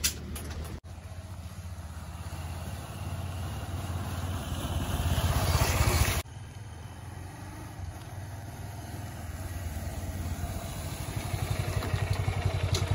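Motorcycle engine running as the bike passes close, growing louder until it cuts off abruptly about six seconds in; then a motorcycle engine running steadily, getting louder toward the end.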